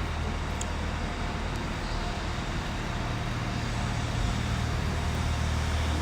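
A large engine running steadily: a constant low hum under a wide hiss, with no change in speed.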